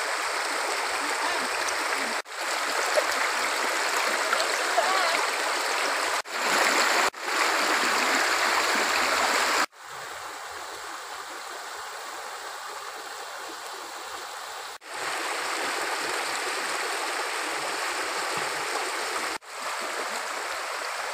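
Shallow stream rushing over rocks: a steady, dense sound of running water that drops in level for about five seconds in the middle.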